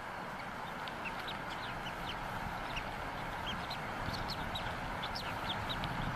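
Bald eagles at the nest giving many short, high, thin peeps, several a second, over a steady hiss.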